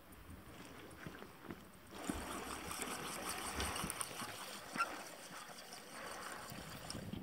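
Water splashing and gurgling close by, with a few light knocks of handling.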